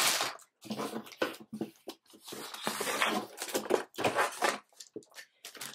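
Clear plastic parts bags crinkling and rustling in irregular bursts as they are handled.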